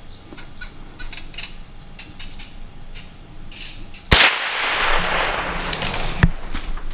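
A single shot from a Ruger 10/22 .22 rifle about four seconds in: a sharp crack, then a couple of seconds of rushing noise with another sharp snap near the end.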